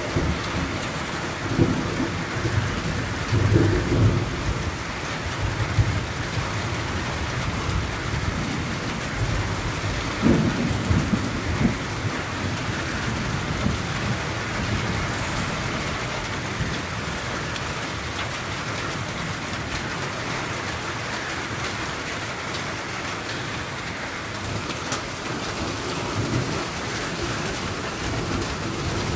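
Steady rain falling, with rolls of thunder rumbling low within the first few seconds, again about ten seconds in, and more faintly near the end.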